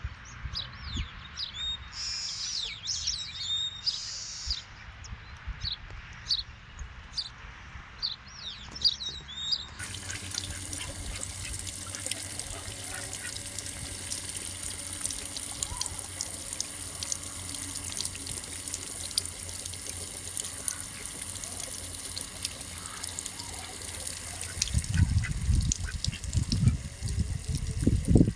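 Birds chirping in short, high calls for about ten seconds. Then the sound changes abruptly to a steady rush of running water with faint chirps over it. Low rumbling thumps come in near the end.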